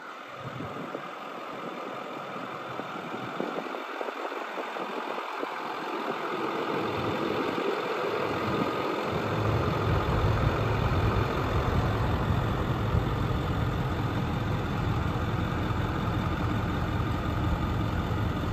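Ford F-550 brush truck's engine idling steadily, growing louder over the first half as it is approached until its low rumble is plain.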